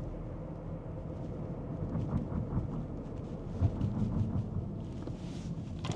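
Car driving: steady low rumble of engine and road noise, swelling a little a few times.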